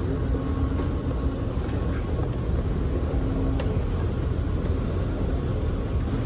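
Escalator running: a steady low rumble with a faint steady hum.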